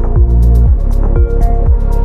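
Electronic background music with a steady beat: deep bass hits that drop in pitch about twice a second, held synth notes and crisp hi-hat ticks.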